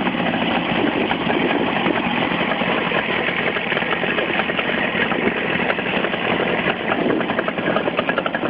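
Kawasaki S3 400SS motorcycle's air-cooled two-stroke three-cylinder engine idling at low revs, with a rapid, uneven pulsing.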